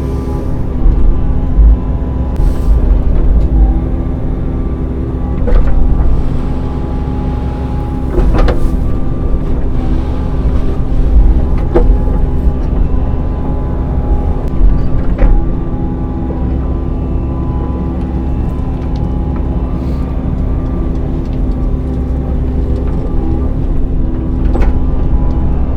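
Midsize excavator's diesel engine running steadily under work while backfilling dirt, with scattered sharp knocks a few seconds apart.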